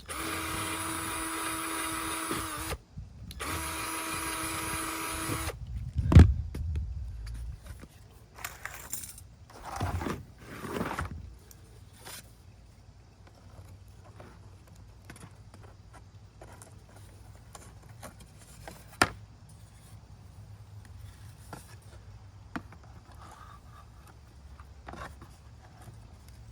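Power drill running in two bursts of about two and a half seconds each at a steady pitch, followed by a sharp knock and then light handling noises and scattered small clicks of wooden pieces.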